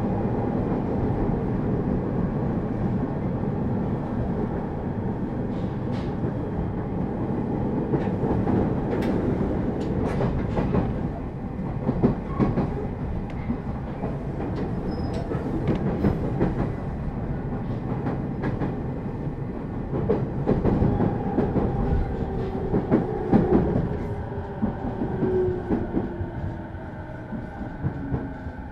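Running sound inside a JR East 209 series 2100 subseries electric train: a steady rumble of wheels on rail with irregular clacks over rail joints. Near the end a motor whine falls in pitch and the noise eases as the train slows.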